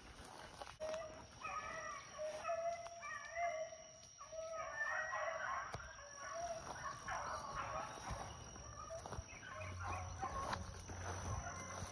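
A pack of rabbit hounds baying out of sight, several voices overlapping in drawn-out bawls, the sound of hounds running a rabbit trail. It is faint and runs on with little break from about a second in.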